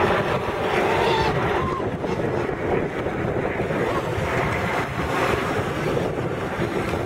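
Radio-controlled model speedboats running fast on open water, their motors heard at a distance under heavy wind noise on the microphone.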